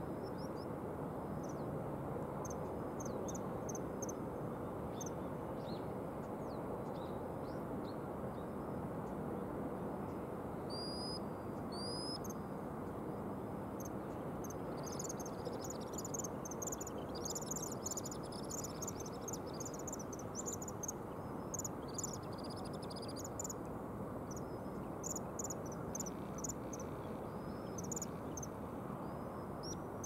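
Two common kingfishers calling: many short, shrill, high-pitched whistled notes, scattered at first and coming thick and fast in the second half, over the steady rush of river water.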